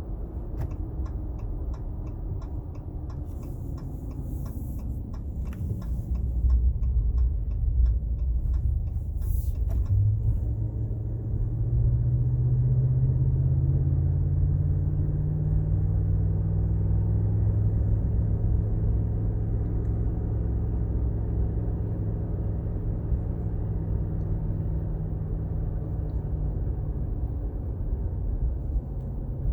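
Inside the cab of a 2019 Ram 1500 pickup on the move: a steady low engine and road drone, with a rapid, even ticking for the first ten seconds or so. About eleven seconds in, the engine note rises as the truck picks up speed, then settles into a steady drone.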